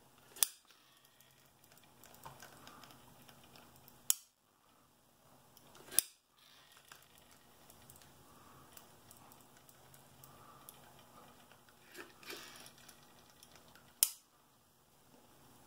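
Hand caulking gun clicking as its trigger is squeezed and released while a silicone bead is laid: four sharp clicks a few seconds apart, with faint handling noise between.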